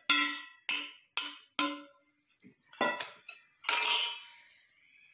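Steel kitchenware knocking together: about six sharp metallic knocks in the first three seconds, each with a short ring, as a strainer is handled over the steel vessel beneath it. A brief rustling noise follows about four seconds in.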